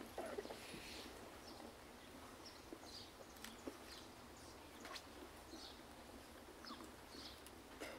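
Quiet outdoor stillness with faint, scattered bird chirps every second or so and a few sharp clicks.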